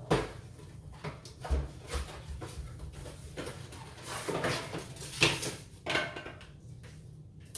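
Kitchen utensils and a mixing bowl clattering, with irregular knocks and scrapes.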